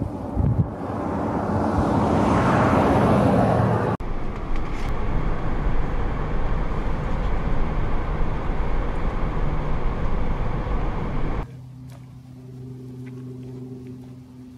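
Wind buffeting the microphone for about four seconds, then a cut to the steady road and engine noise of a vehicle driving, heard from inside the cabin. Near the end it cuts to a much quieter steady low hum.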